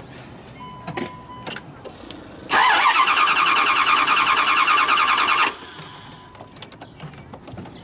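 2009 Dodge Durango engine cranking on the starter for about three seconds with a fast, even rhythm, then stopping without firing: a crank-no-start, with the fuel pressure gauge reading no PSI.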